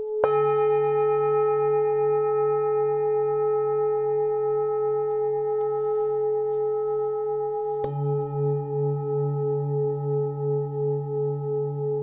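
24.5 cm 'Full Moon' hand-hammered singing bowl struck twice, about eight seconds apart. Each strike sets it ringing on a low fundamental around D (142 Hz) and a strong G♯ (425 Hz) overtone with fainter higher partials, the tone wavering in a slow pulse as it sustains.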